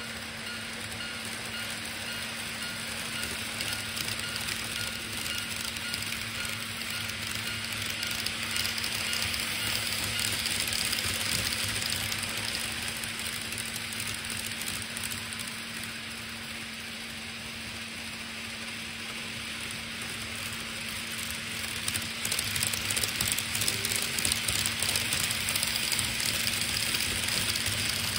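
Model trains running on a layout's track, a continuous whir and rolling rattle from motors and wheels over a steady low hum. It swells twice: briefly around ten seconds in, then from about twenty-two seconds on as a train comes close and passes.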